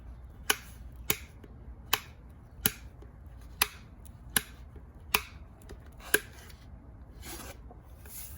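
A series of sharp clicks, about eight of them, roughly one every three-quarters of a second, with two fainter ones near the end.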